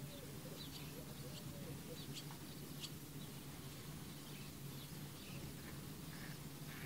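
Barn swallows calling: a scatter of short, sharp high chirps in the first half, with a few lower calls near the end, over a steady low hum.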